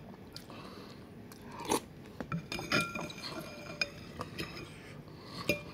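Metal fork and spoon clinking against a bowl of noodles in broth, a few sharp clinks scattered through, some ringing briefly, with chewing in between.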